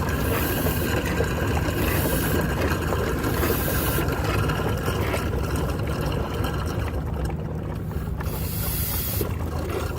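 A steady, low, engine-like hum.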